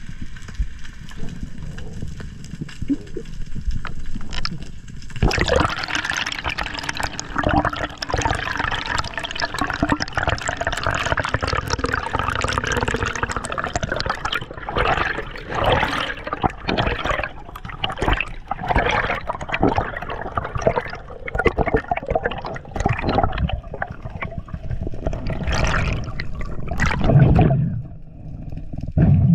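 Scuba exhaust bubbles underwater, gurgling and crackling with many sharp pops from about five seconds in, after a low underwater rumble.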